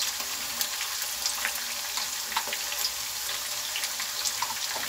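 Sliced onions, garlic and dried red chillies frying in hot oil in a pan for a tadka: a steady sizzle with scattered small pops and crackles.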